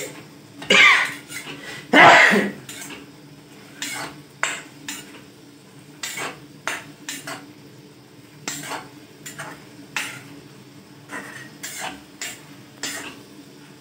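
Long metal ladle scraping and knocking against a steel kadhai while stir-frying khukhdi mushrooms. There are two loud scrapes in the first couple of seconds, then lighter, irregular clinks and scrapes.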